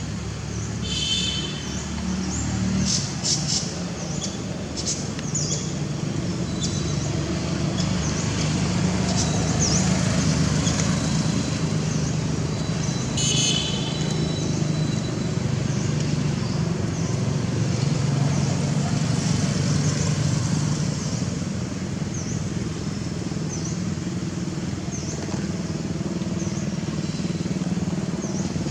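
Motor vehicle engines running steadily, rising and falling slowly like passing road traffic, with short high chirps over them.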